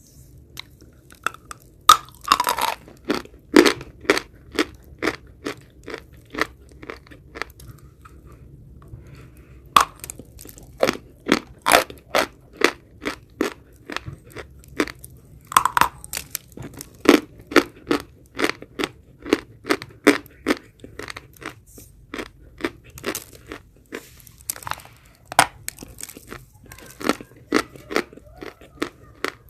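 Close-miked chewing of edible chalk: repeated sharp, dry crunches as a mouthful is bitten and ground down, with a few seconds' pause about a quarter of the way through.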